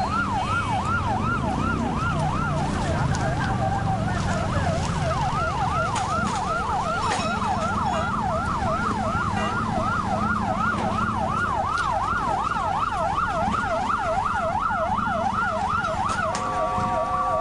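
Emergency vehicle siren on a fast yelp, its pitch sweeping rapidly up and down, over low engine and traffic rumble. Near the end it switches to a steady horn-like tone.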